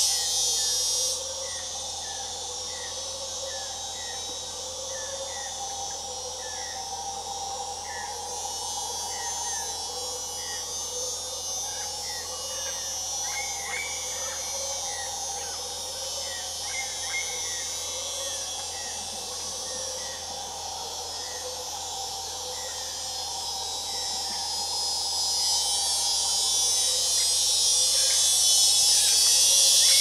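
Amazon rainforest insect chorus: a dense, steady high-pitched shrilling with many short chirps repeating and a lower steady drone beneath. The shrilling drops back about a second in and swells louder over the last few seconds.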